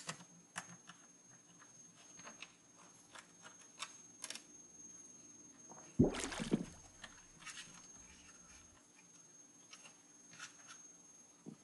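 Small clicks and taps of a screwdriver and fingers working the plastic and metal parts of a CD-ROM drive being taken apart, with one louder, heavier knock about six seconds in.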